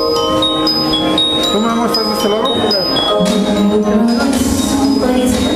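Song backing track with a bright bell-like melody over held chords; a voice comes in singing about a second and a half in, holding a long note from about three seconds in.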